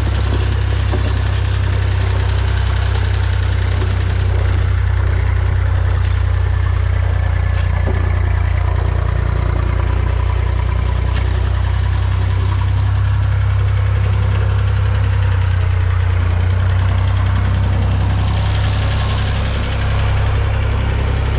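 Massey Ferguson 150 tractor engine running steadily under light grading work, with a deep, even drone.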